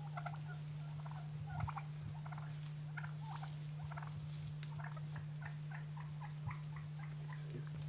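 A flock of Rio Grande wild turkeys calling: a string of short calls, two or three a second, over a steady low hum.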